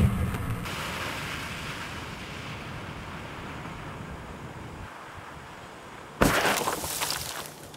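Black powder charges going off on the ground. A deep blast dies away in the first half second, then a steady hiss while a small charge smokes. About six seconds in a second charge goes off with a sudden loud burst, fading with crackles over about a second.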